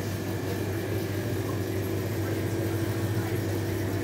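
Steady low mechanical hum over an even hiss, unchanging throughout: the background drone of the shop's machinery.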